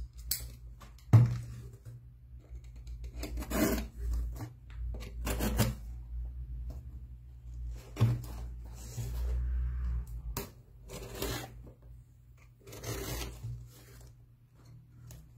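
Yellow utility knife slicing through packing tape on a cardboard box, in irregular scraping and tearing strokes, with the cardboard flaps being handled and a couple of sharp knocks against the table, the loudest about a second in and near the middle. A steady low hum runs underneath.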